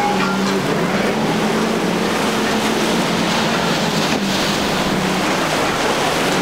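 A center-console boat's quad outboard engines running at speed, a steady drone that wavers slightly in pitch, over the rushing of water and wind.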